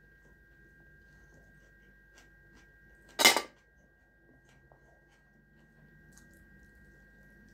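Faint sounds of eating boiled turkey by hand, with meat being pulled from the bones and a bone lifted to the mouth, over a steady faint high-pitched tone. A short, loud burst comes about three seconds in.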